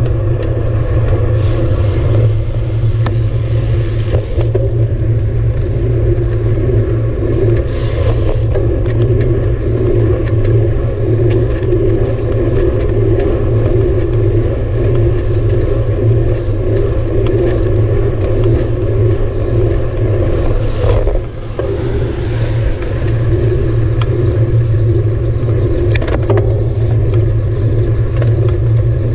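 Steady, loud rumble of wind and road vibration picked up by a handlebar-mounted camera on a bicycle rolling over pavement, with scattered light clicks and rattles. It eases briefly about three-quarters of the way through.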